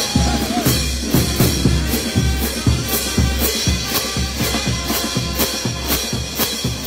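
Peruvian street brass band (banda) playing, its bass drums, snare drum and cymbals carrying a steady marching beat, with sharp hits about twice a second over a booming low drum pulse.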